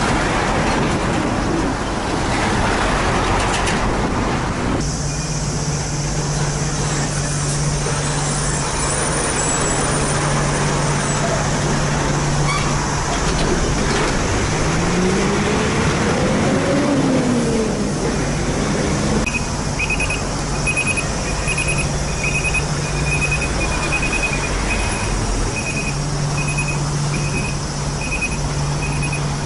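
Diesel container semi-trucks passing and pulling out at a junction: a steady low engine drone, with engine pitch rising and then falling midway as one accelerates. From about two-thirds of the way in, a high electronic warning beep repeats about one and a half times a second.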